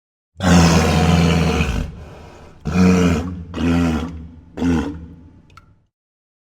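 Sound effect of a made-up hybrid creature's roar in the manner of a big cat: one long roar of about two seconds, then three shorter roars about a second apart, each fading away.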